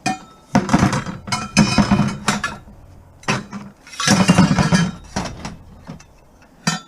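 Pieces of scrap metal clanking and clinking together in several bursts, each with a bright metallic ring.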